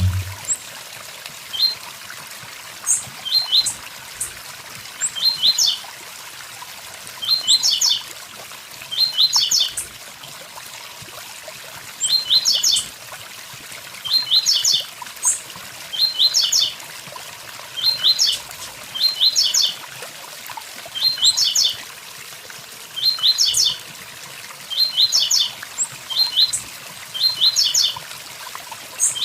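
Blue-black grassquit (tiziu) singing its short tui-tui-zel-zel phrase over and over: a brief high burst of a few quick notes about once a second, with one longer pause about a third of the way in. A waterfall rushes steadily underneath.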